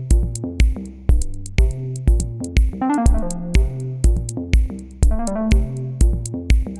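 Electronic background music with a steady beat of about two drum hits a second under held melodic notes.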